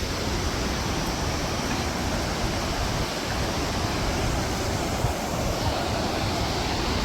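Fast-flowing mountain river rushing steadily.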